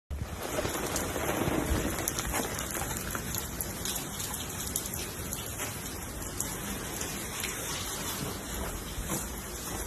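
Steady, dense patter like rain falling on a surface, with many fine ticks in a continuous hiss.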